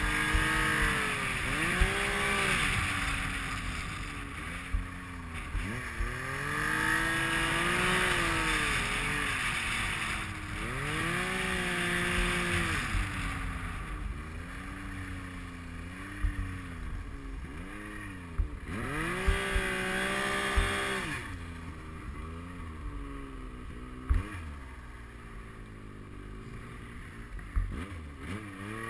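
Yamaha Nytro X-Ride snowmobile's four-stroke three-cylinder engine revving up and easing off over and over as it ploughs through deep powder snow, over a rushing noise and occasional sharp knocks. It runs lower and quieter in the last few seconds.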